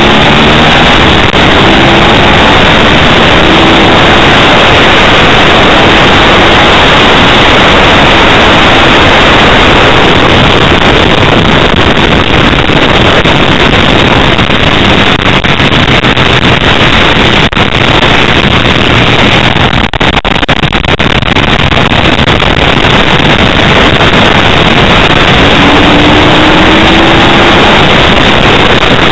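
Loud, distorted wind roar on an onboard camera microphone on a Ducati 888 at racing speed. The bike's 90-degree V-twin is faintly heard beneath it, rising in pitch at the start and again a couple of seconds before the end.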